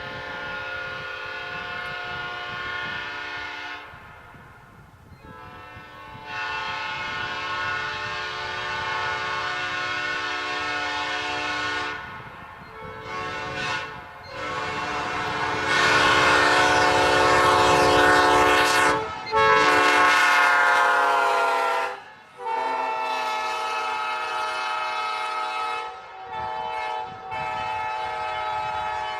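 Multi-chime locomotive air horn blown on compressed air, a chord of several notes sounded in a series of blasts of a few seconds each with short breaks between, including two quick toots just before the loudest, longest blast.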